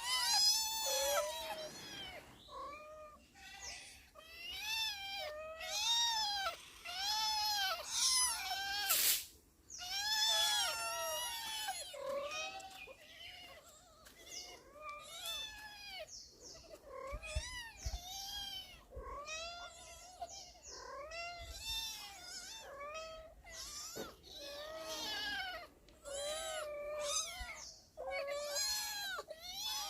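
Several domestic cats meowing over and over at feeding time, many short rising-and-falling calls overlapping one another.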